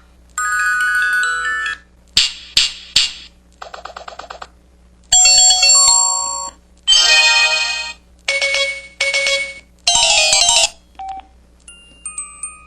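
KTF-X5200 mobile phone playing its built-in effect sounds one after another: about seven short electronic jingles and chimes of a second or so each, separated by brief pauses, then a few faint short beeps near the end.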